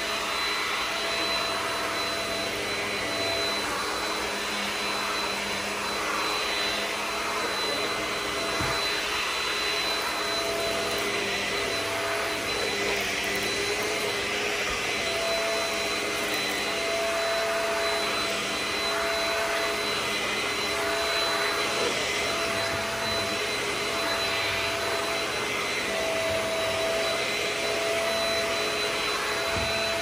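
Stick vacuum cleaner with a powered brush-roll floor head running steadily as it is pushed back and forth over an area rug: a continuous rush of air with a steady high whine, and a middle tone that drops in and out.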